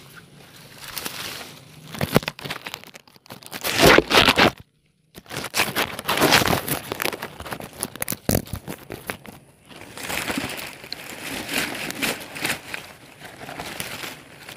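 Rubbing and crinkling handling noise of a phone held in the hand, skin and clothing brushing over its microphone in uneven bursts, with the sound cutting out to dead silence for about half a second some four and a half seconds in.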